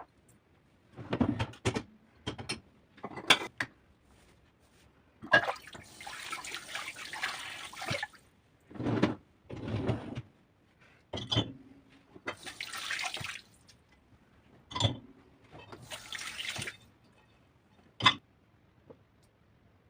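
Kitchen tap running in three short spells, turned on and off, between separate knocks and clinks of dishes and utensils at the sink.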